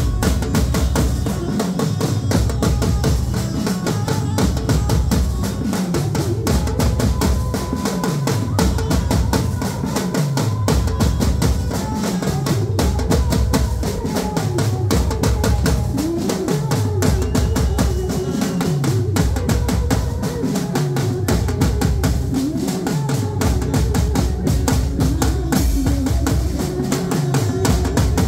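Live street band music: several drummers beat a fast, steady rhythm on painted drums and cymbals, over a deep bass note that drops in pitch about every two seconds.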